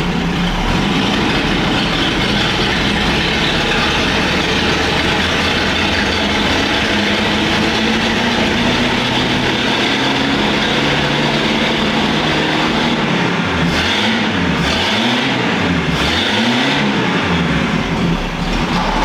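1951 Packard's straight-eight engine running, its speed creeping up slowly, then revved up and down about three times near the end.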